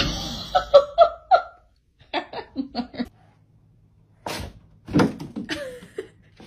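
A person laughing in short bursts, then a couple of sharp knocks.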